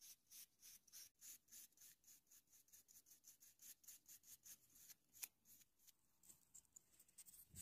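Flat bristle brush stroking wood stain onto a small basswood piece: quick scratchy brush strokes about three a second, with one sharper tap about five seconds in.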